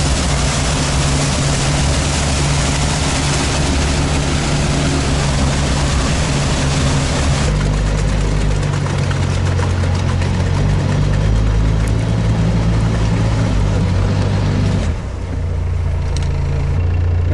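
All-terrain vehicle's engine running under way, a steady low drone with a loud hiss of wind or water over it. The hiss lessens about halfway through and drops away sharply near the end, leaving mostly the engine.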